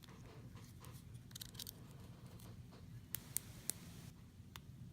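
Faint, scattered metallic clicks and light scraping of a standard hook pick working the pin stacks of a BEST padlock during single-pin picking, over a low steady hum.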